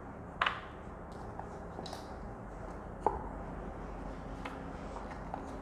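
A few soft taps and clicks, the clearest about half a second in and about three seconds in, as gold-dusted chocolate half-sphere shells are set down on parchment paper and pulled from a silicone mould.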